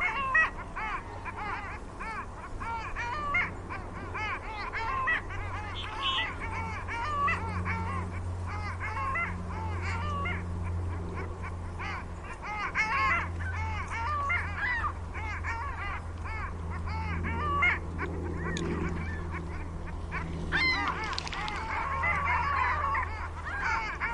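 A flock of ducks on a pond calling in a busy, overlapping chatter of many short calls, over a low steady hum.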